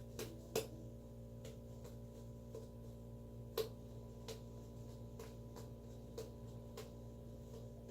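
Sticky glitter slime being kneaded and stretched by hand, giving irregular soft clicks and pops, one or two louder than the rest, over a steady electrical hum.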